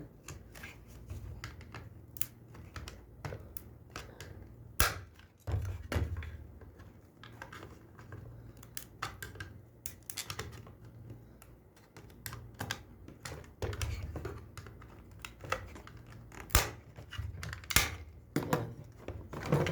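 Plastic smoke detector housing being pried open with a tool: a long run of scattered sharp clicks, scrapes and snaps of plastic, with a few louder snaps about five seconds in and twice near the end.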